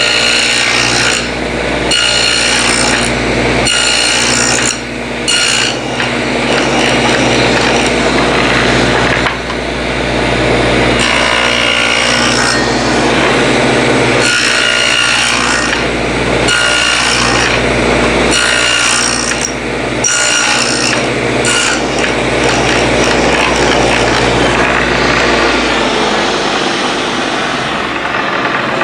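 Table saw running with a 1/4-inch dado set, cutting dadoes in the ends of wooden drawer pieces in repeated passes; the steady motor hum carries on under a cutting noise that swells and eases every second or two as the stock is fed over the blades.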